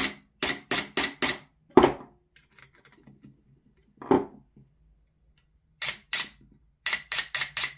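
Silverback MDR-X airsoft electric gearbox with the V2 upgrade kit, run from an 11.1 V LiPo through its semi-auto trigger board and cycling in single shots, a sharp clack per cycle. There are about four shots in the first second and a half, then a pause, then a faster even string of about five a second near the end. It sounds really good, a sign the newly fitted gears cycle cleanly.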